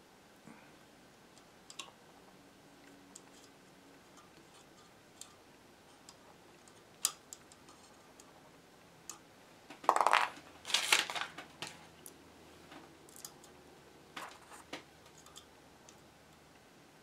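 Scattered light clicks and taps of wire and small metal hardware being handled on a radio chassis, with a louder burst of scraping and rustling about ten seconds in.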